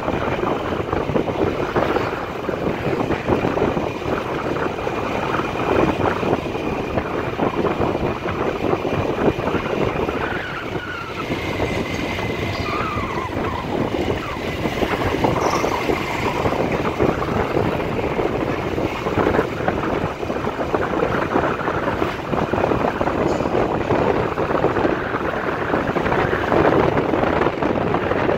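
Motorbike riding along a street with wind rushing over the microphone, its engine running under the wind noise along with the engines of nearby scooters and cars in traffic.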